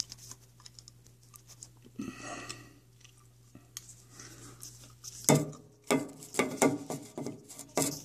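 Irregular knocks, scrapes and clatters of a handheld camera bumping around inside a dryer's sheet-metal vent opening, with a run of louder knocks in the second half over a faint steady low hum.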